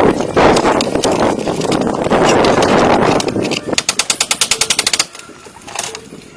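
Power tool working wood: a loud, rough noise for about three and a half seconds, then a quick run of rapid, even clicks that stops suddenly about five seconds in.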